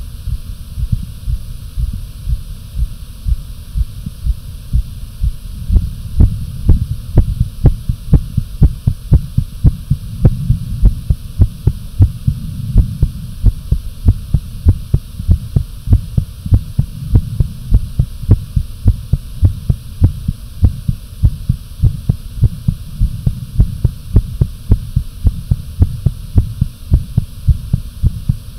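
A person's heartbeat, fast and regular, over a low steady hum. The beats become sharper and louder about six seconds in.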